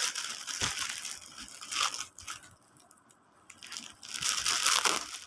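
Parcel packaging being torn open and crinkled by hand, in two spells of rustling with a short pause around the middle.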